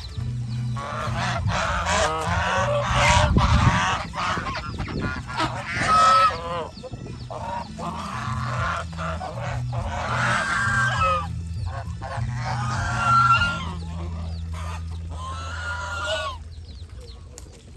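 Domestic geese honking, many calls overlapping in bouts, with a steady low hum underneath; the honking stops about a second before the end.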